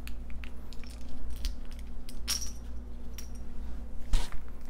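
Small plastic items and packaging being handled on a table: scattered light clicks and taps, with a sharper knock about four seconds in.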